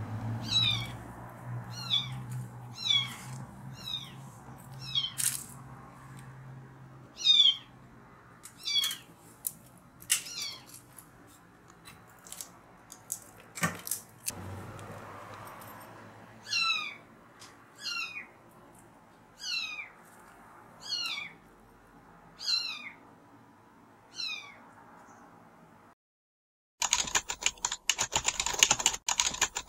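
A stray kitten mewing over and over, short high-pitched calls that each fall in pitch, about one a second. Near the end the calls stop and, after a brief gap, a dense crackling noise takes over.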